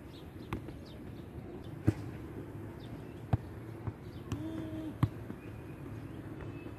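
Football being juggled: about six sharp thuds of foot and head touches on the ball, spaced irregularly, the loudest about two seconds in and near five seconds. A brief low hum sounds about four and a half seconds in.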